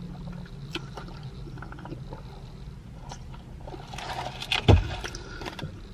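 Small mouth and handling sounds of a person sipping a drink through a straw and chewing, over a low steady hum inside a car cabin. There is one dull thump with a short rustle about three-quarters of the way in.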